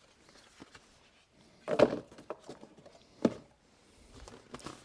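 Items being handled and set down during an unboxing: two short knocks, one about two seconds in and another about a second and a half later, with faint rustling toward the end.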